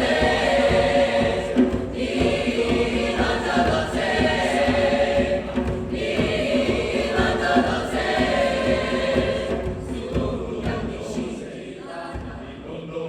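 A choir singing in sustained phrases, growing quieter near the end.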